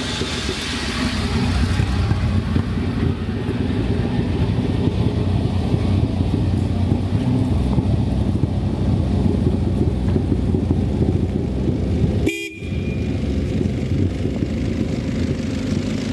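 Engine of a lifted Jeep off-roader running steadily under load as it crawls up a steep forest track. The sound drops out for a moment about 12 seconds in.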